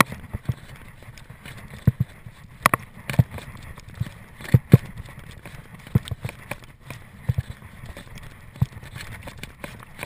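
Mountain bike being ridden over rough cross-country trail: uneven sharp knocks and thumps from the bike jolting over the ground, roughly two a second with no steady rhythm.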